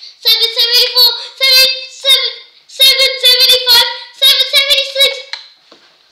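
A child's high voice rattling off numbers in a quick, sing-song chant, the syllables held at a nearly even pitch; it breaks off shortly before the end.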